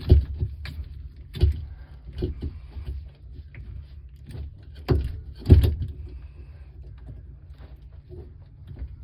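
Metal clinks and knocks from hands working on parts and wiring, a few sharp strokes spaced out, two of them close together about five seconds in, over a steady low hum.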